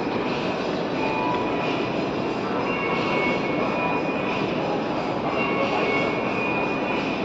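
Steady shopping-mall interior ambience: a constant noisy wash with faint tones drifting in and out.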